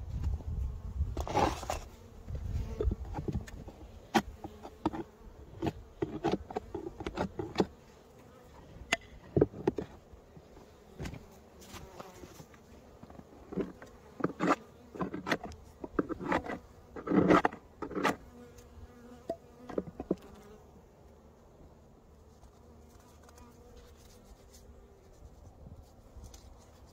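Honeybees buzzing around a hive, with scattered knocks and clicks from handling the hive and its surroundings through the first two-thirds.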